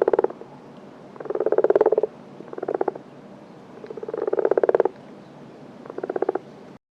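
An animal calling repeatedly: short rasping, pulsed calls about every one and a half seconds, five in all, cut off just before the end.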